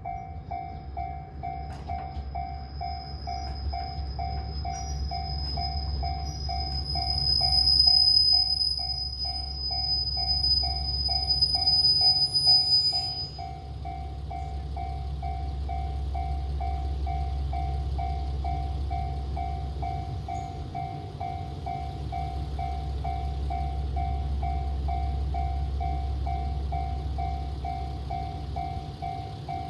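Japanese level-crossing warning bell ringing steadily, about two electronic dings a second. A train passes over the crossing, its rumble loudest about 8 and 12 seconds in, and a high steady whine cuts off about 13 seconds in.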